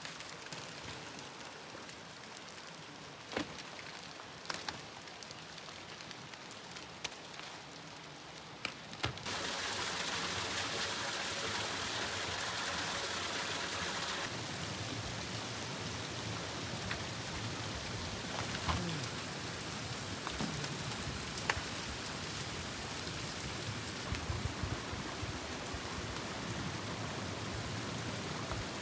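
Outdoor ambience of dripping and trickling meltwater at a thawing permafrost cliff: a steady rain-like hiss with scattered sharp ticks of drops, becoming louder about nine seconds in.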